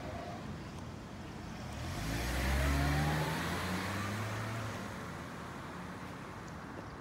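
A motor vehicle drives past with its engine accelerating, its pitch rising. It swells in about two seconds in, is loudest around the third second, then fades away.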